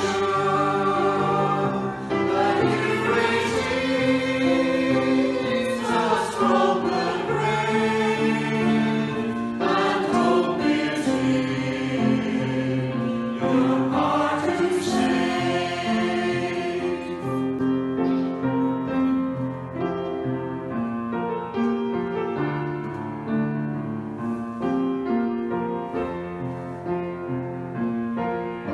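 A church choir singing a hymn with instrumental accompaniment. About two-thirds of the way through the voices stop, and the accompaniment plays on alone between verses.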